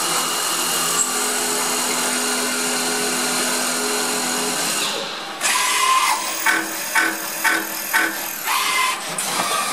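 CNC lathe machining steel screwdriver bits: the spindle and cutting tool run with a steady whirring, drill-like noise. About five seconds in it dips briefly, then resumes with a quick run of regular pulses about two a second.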